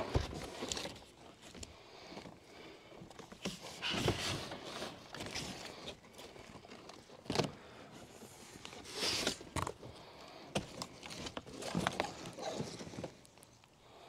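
Cardboard shipping-box panels being pulled off a metal crate and dropped aside: irregular scraping, rustling and thumps of the cardboard, with footsteps on gravel.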